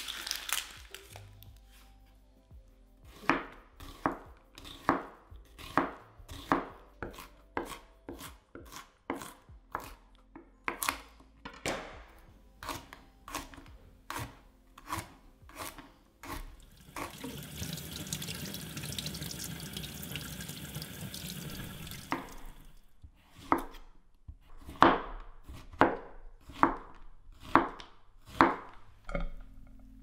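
Kitchen knife chopping vegetables, garlic among them, on a bamboo cutting board, in slow even strokes about one every three-quarters of a second. In the middle comes a steady hissing noise lasting about five seconds, then a quicker run of chopping strokes.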